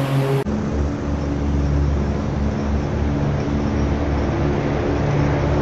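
Ariens IKON zero-turn riding mower's engine running steadily as it drives across the lawn, a low even drone. The sound changes abruptly about half a second in.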